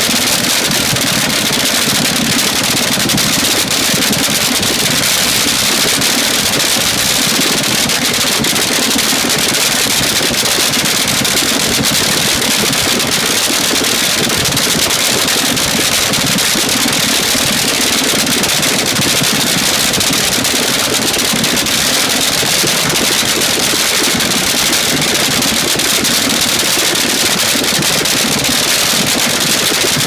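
Front-engine AA/FD fuel dragster's supercharged, nitromethane-burning V8 cackling at idle, loud and steady throughout.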